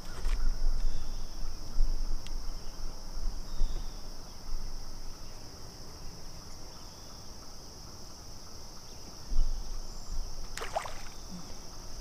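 Steady high-pitched drone of insects, with a low rumble coming and going, loudest in the first few seconds and again near the end. There is a short gliding sound about ten and a half seconds in.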